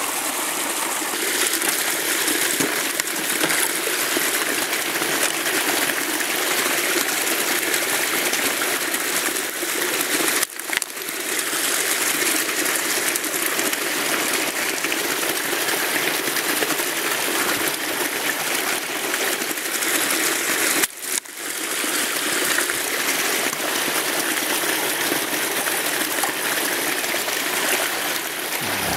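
Steady rush of water flowing at a beaver dam, with two brief dropouts about a third and two-thirds of the way through.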